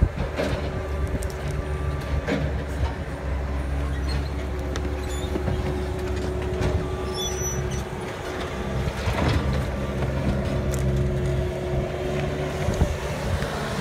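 A tracked stump grinder's engine running steadily.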